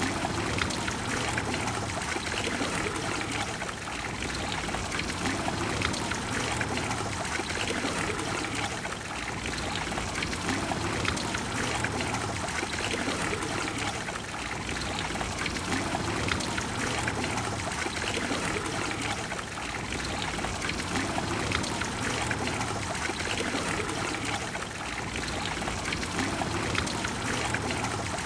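Water of the Trevi Fountain cascading and splashing into its basin: a steady, dense rush of falling water.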